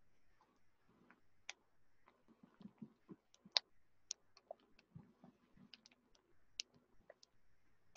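Cauliflower florets being dropped by hand into a saucepan of sautéing onions: faint, irregular clicks and a few soft knocks.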